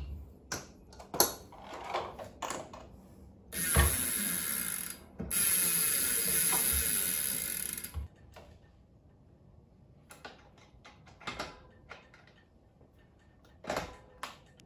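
Bicycle rear hub's freehub ratchet buzzing as the carbon Campagnolo Bora WTO wheel is spun by hand. There are two steady buzzes of a second or more each, the second longer and fading as the wheel slows. Scattered light clicks and taps come before them, and a single knock near the end.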